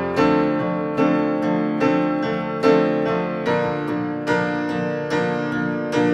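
Piano music: notes struck at an even, unhurried pace, each ringing on as the next begins.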